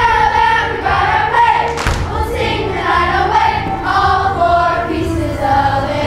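Children's choir singing together, with a single thump about two seconds in.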